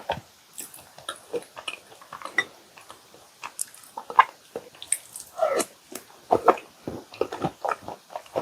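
Close-miked chewing of chocolate chip cookies soaked in milk: an irregular run of wet mouth clicks and smacks.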